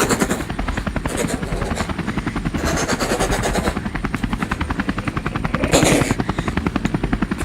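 Toy helicopter's rotor chopping in a steady, rapid beat of about ten pulses a second, with two swells of rushing noise, one about three seconds in and one near six seconds.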